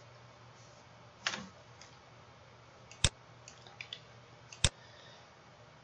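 A few separate clicks and light taps from a computer mouse and keyboard: a soft knock about a second in, then two sharp clicks, with faint ticks between them.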